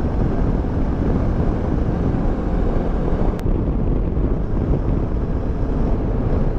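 Steady wind rush on the helmet microphone over the running of a QJMotor motorcycle on the move.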